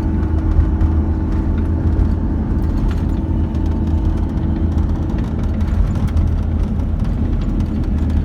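Four-wheel-drive vehicle running with a steady low rumble, with a faint steady hum that fades out about five seconds in.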